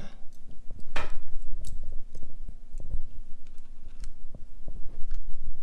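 Scattered small metal clicks and ticks from handling a folding hex key set and swinging out a key to adjust a boring head, the sharpest click about a second in, over a faint steady hum.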